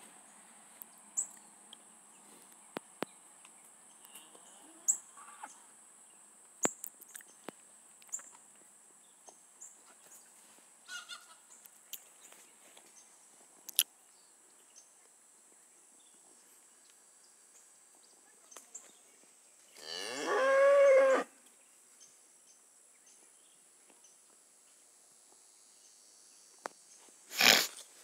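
A cow at the fence mooing once, a single call of about a second and a half, about twenty seconds in. Small scattered clicks and rustles come before it, and a short, loud rush of noise comes near the end.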